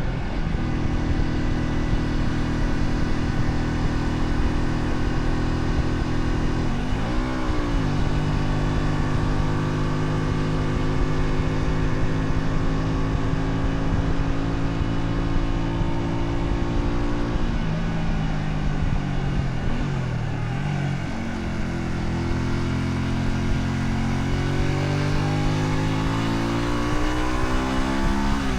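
Honda Shadow 125's small V-twin engine under way, running at a steady speed. There is a quick gear change about seven seconds in. It slows with falling pitch around two-thirds of the way through, then accelerates with a steadily rising pitch toward the end, where it shifts again.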